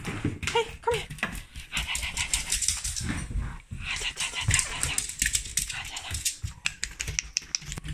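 Excited dog greeting its owner: a few short high whines about half a second in, amid steady scuffling and clicking as it moves around.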